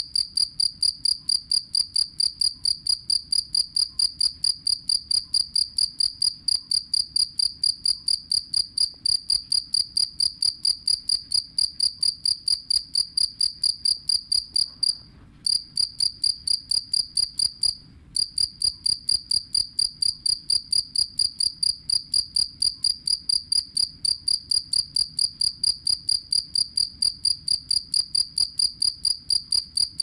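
Male two-spotted field cricket (jangkrik kalung, Gryllus bimaculatus) calling, its wings raised to sing: a steady, high-pitched chirping at about three chirps a second. The chirping stops twice, briefly, about halfway through.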